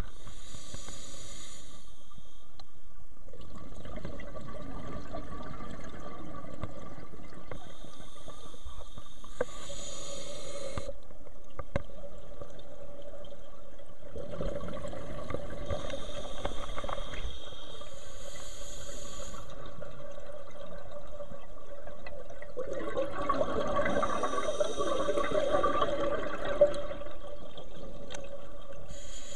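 A scuba diver breathing through a regulator, heard underwater: about four slow breath cycles, each a hiss followed by a rush of exhaled bubbles, with a faint steady hum underneath.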